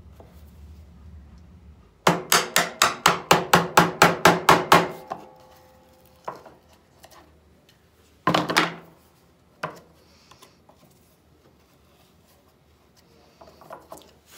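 Mallet tapping a wood chisel into MDF: a quick run of about sixteen light strikes at roughly six a second, then a few single knocks, the heaviest about eight seconds in.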